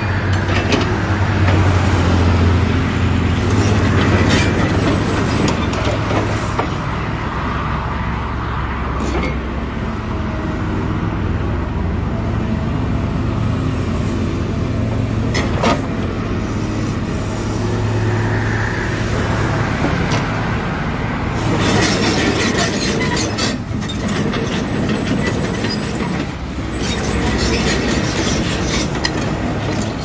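Kobelco crawler excavator's diesel engine running steadily with a deep hum, with a few sharp clicks. From about two-thirds of the way through, a denser clatter and hiss joins it as the machine moves on its steel tracks.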